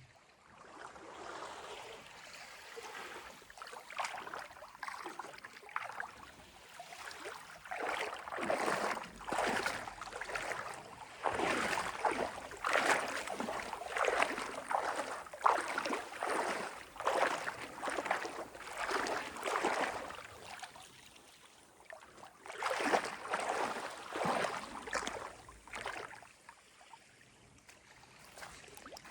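Sea water lapping and splashing in quick repeated surges, about one a second. It builds after the first few seconds, is loudest through the middle, and eases off for the last few seconds.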